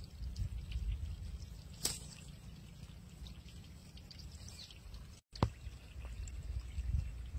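Faint trickling and dripping of water as a plastic bag is dipped into shallow swamp water among grass, with a sharp click about two seconds in.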